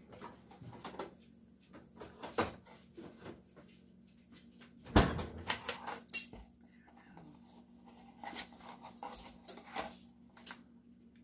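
Kitchen handling sounds: scattered clinks and knocks of metal spoons and utensils against containers, with one loud thump about five seconds in.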